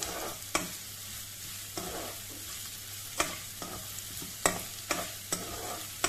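Sliced onions sizzling steadily in hot oil as they are lightly sautéed, with a spatula scraping and knocking against the pan in irregular clicks while they are stirred.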